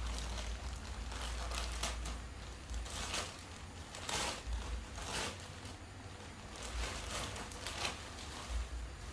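Plastic packaging rustling and crinkling as it is handled, in a series of short rustles a second or so apart.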